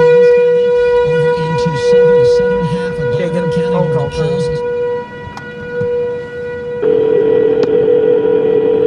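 A loud, steady siren-like tone holding one pitch, with a muffled low voice under it in the first half. A second, lower tone joins about seven seconds in.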